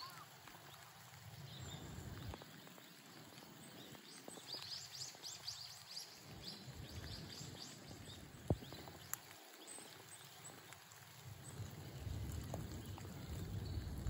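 Faint outdoor ambience: birds twittering in a quick run of short, high chirps about four to six seconds in, over a low rumble that swells near the end, with a couple of sharp clicks.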